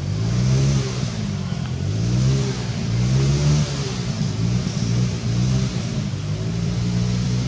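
An engine running and revving, its pitch rising and falling again and again, about once a second.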